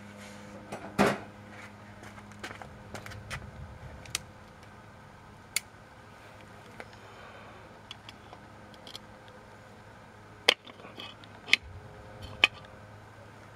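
Scattered sharp metallic clicks and knocks of pliers and steel drum brake parts being handled, the loudest about a second in and three more near the end, while the pin for the lever on a rear drum brake shoe is pressed in with pliers. A low steady hum runs underneath.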